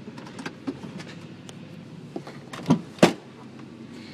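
Clicks and rattles of handling inside a truck cab, then two sharp clunks in quick succession about three seconds in, the second the louder, like the truck's door being unlatched and pushed open.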